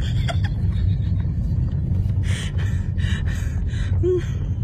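Steady low rumble of a moving taxi's engine and road noise heard inside the cab, with a few short hissing sounds around the middle.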